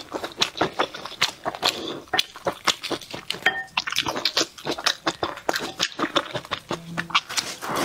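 Quick wet, sticky clicks and squelches as a sauce-coated piece of red-braised beef rib is pulled apart by gloved fingers.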